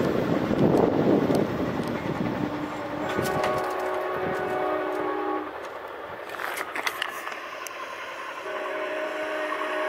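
A locomotive air horn sounds a chord of several notes in two long blasts: one starting about three seconds in, the other near the end. Before it, in the first two seconds, the low rumble of a train fades.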